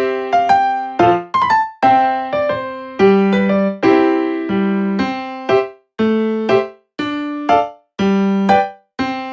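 Background music: a piano-like keyboard playing a light melody over chords, each note struck and fading, with short breaks between phrases in the second half.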